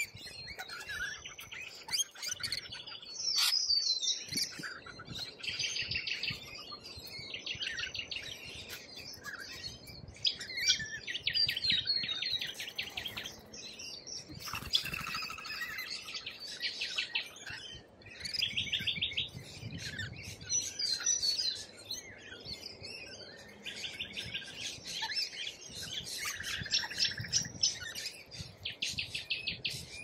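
A flock of rainbow lorikeets chattering and screeching while they feed: rapid, rasping pulsed calls from many birds at once, overlapping in bouts that keep coming.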